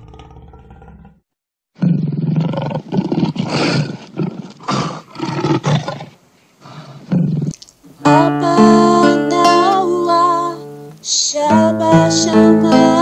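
A growling, roar-like sound in a string of rough, irregular bursts. About eight seconds in, music takes over with layered, sustained notes.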